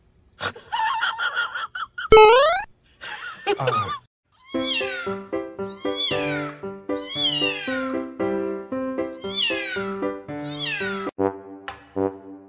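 A kitten meowing over and over, high-pitched, each meow falling in pitch, about once a second, over a backing music track. Before that, in the first few seconds, there are short cartoon-like sounds, including a quick rising sweep about two seconds in.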